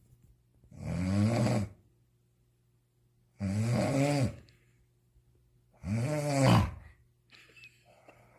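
A man snoring: three loud snores, each about a second long and roughly two and a half seconds apart, with near quiet between them.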